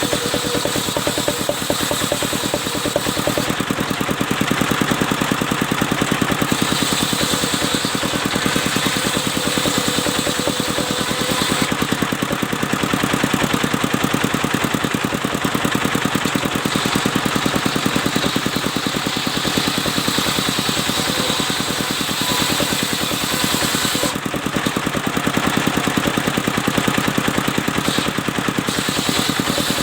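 Engine-driven mobile circular sawmill running steadily, its engine beating in rapid, even pulses. A higher hiss comes and goes in spells of several seconds.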